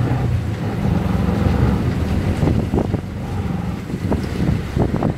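Auto rickshaw engine running steadily as the rickshaw drives along, with wind buffeting the microphone and a few short rattles in the middle and near the end.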